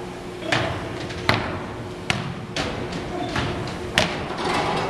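Irregular thuds and sharp slaps, about seven in a few seconds, ringing in a large gymnasium hall: sandbags and balls landing on the hardwood floor.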